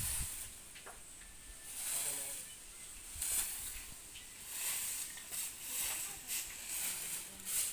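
Twig broom swishing and scraping across a dusty dirt yard in repeated sweeping strokes, about one or two a second.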